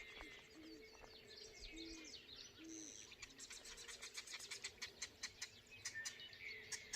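An owl hooting softly several times in the first three seconds, over blackbirds chattering with rapid high clicks and chirps that grow denser after about three seconds.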